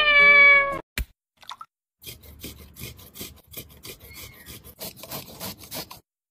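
A cat's single meow, falling slightly in pitch, then a sharp click about a second in. From about two seconds in comes a run of quick scraping strokes: ginger root being grated on a flat metal hand grater over a bowl.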